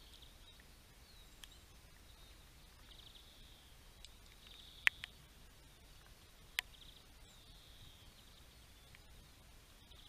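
Faint high twittering of small finches, Eurasian siskins, at a seed feeder. A few sharp clicks cut through it, the loudest about five seconds in and another near six and a half seconds.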